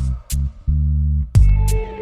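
Background electronic music with a heavy bass line and a steady beat.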